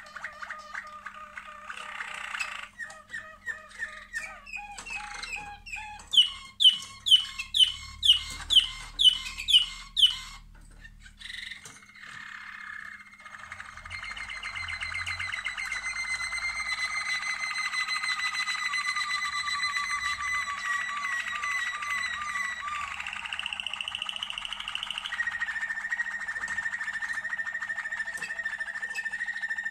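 Domestic canaries singing: quick trills, then a run of about eight loud, sharp repeated notes, roughly two a second, then long rolling trills held steady to the end.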